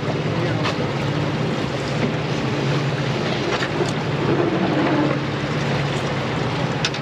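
Boat's motor running steadily, with wind and water noise over it and a few light knocks.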